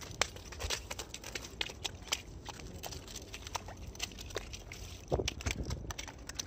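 Footsteps crunching on stones and gravel, a run of irregular crunches and clicks, with a louder cluster about five seconds in.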